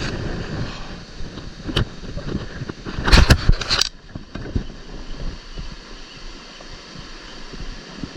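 River water rushing over rocks in fast pocket water, a steady hiss, with a brief louder burst about three seconds in and a single click a little before it.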